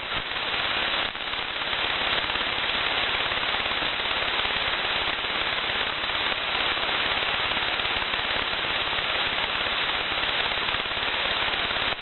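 Shortwave receiver output tuned to an empty frequency in the 80-metre amateur band: steady hiss with dense crackling static and no station.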